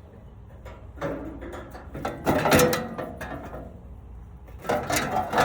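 Sheet-metal clattering and scraping as an outdoor air-conditioner condenser unit's panels and fan top are handled and moved, in two bouts: one from about a second in, another near the end.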